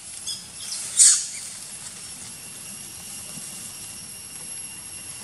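Macaque squealing: a brief shrill squeal about a second in, after a fainter one, then only a faint steady high whine in the background.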